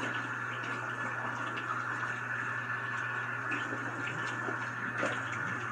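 Bathroom tap running steadily into a sink, with small splashes and drips as water is scooped onto a face to rinse off a face mask and scrub.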